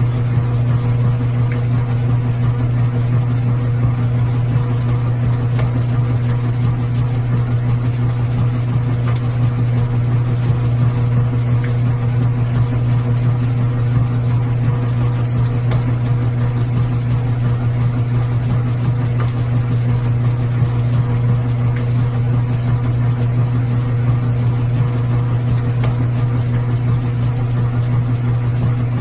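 Washing machine running with a steady low hum that holds unchanged throughout, with a few faint scattered ticks.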